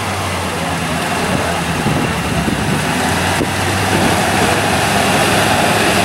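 Car engine idling steadily, under a wash of outdoor noise that grows slightly louder toward the end.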